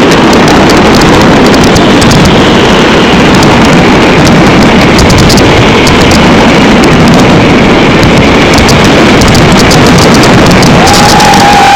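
Continuous fireworks barrage, so loud that it overloads the recording into an unbroken rumble, with repeated spells of sharp crackling. Near the end, held whistles sound over it.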